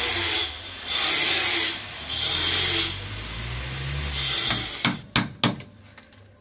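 Plywood being cut by hand in back-and-forth strokes, each about a second long, opening the base under a granite counter for a sink. Near the end come a few sharp knocks.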